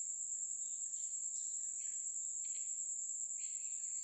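A steady high-pitched tone that runs without a break, over faint background hiss.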